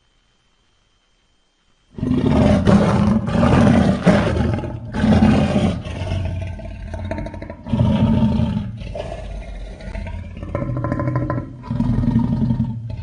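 Monster roar sound effects for a giant piranha creature: after about two seconds of silence, a series of loud growling roars comes in, several seconds each with short breaks between them.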